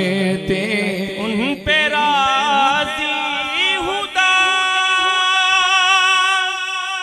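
A man singing a naat unaccompanied into a microphone, sliding through long ornamented vocal runs, then holding one long steady note from about four seconds in.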